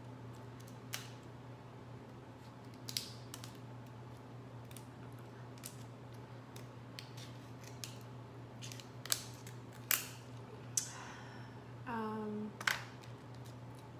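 Hard crab shell cracking and snapping as it is pried apart by hand: scattered sharp cracks, the loudest bunched around the ten-second mark, and a short sound that slides down in pitch about twelve seconds in.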